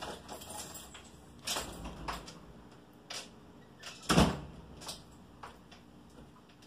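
A few light knocks and clicks in a small room, with one louder, deeper thump about four seconds in.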